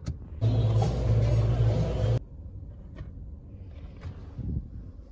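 Road and engine rumble heard inside a moving car's cabin. It is loud for the first couple of seconds, then cuts off abruptly to a much quieter low rumble.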